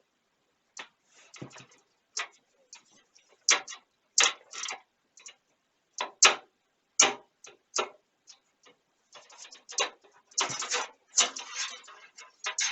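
Hard clicks and knocks of small hardware being handled and fitted against a computer case, single and irregular, then a denser scraping rattle from about nine seconds in.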